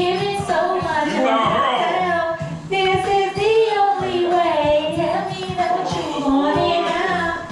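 A woman singing a melody into a handheld microphone, karaoke-style, with long held and sliding notes.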